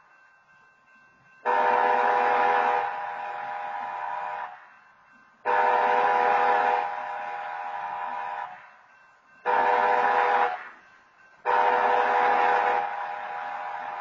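Train horn sounding the grade-crossing pattern: two long blasts, a short one, then a long one. Each blast is a chord of several steady tones that starts suddenly, holds loud for about a second, then carries on softer before fading.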